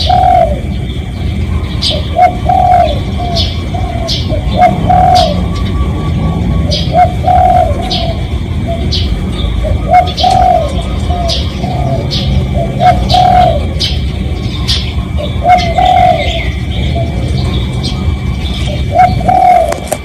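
Spotted dove cooing: a phrase of a few low coo notes every two to three seconds, while small birds chirp sharply in the background over a steady low rumble.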